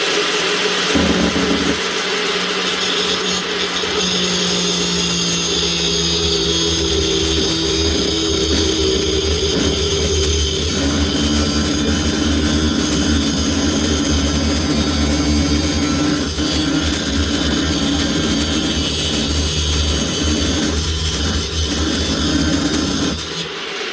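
Angle grinder running continuously as it cuts into a threaded drain pipe. Its motor pitch shifts partway through as the load on the disc changes, and it eases off just before the end.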